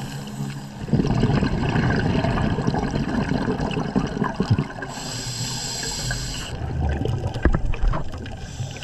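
Gurgling, splashing water over background music, the water loudest from about a second in.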